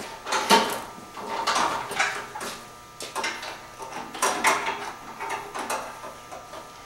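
A run of irregular knocks and clatters, about a dozen short strikes spread unevenly over several seconds, like hard objects being picked up, set down and knocked together.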